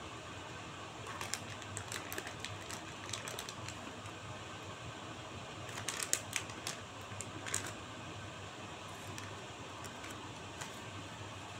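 Irregular light clicks and taps over a steady low hum: a scattering of clicks in the first few seconds, then a louder cluster about halfway through.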